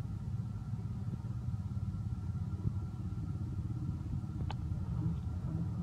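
A motor engine running steadily with a low rumble, and a single faint click about four and a half seconds in.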